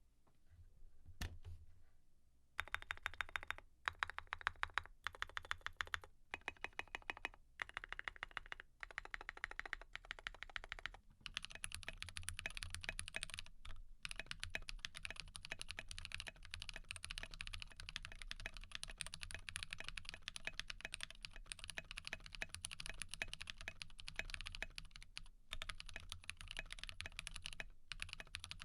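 Typing on a GMMK Pro mechanical keyboard with lubed Glorious Panda tactile switches and SA-profile PBT keycaps. After a short quiet with a single click, it comes in short bursts of fast keystrokes with pauses between, then settles into steady fast typing with only a couple of brief breaks.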